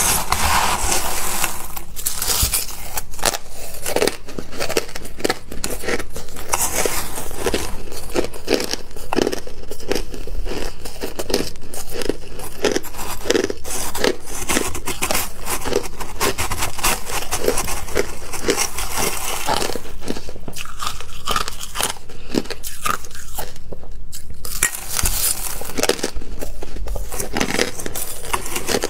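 Crushed ice being chewed, quick repeated crunches about two to three a second. A metal spoon scrapes and scoops crushed ice in a stainless steel bowl near the start and again near the end.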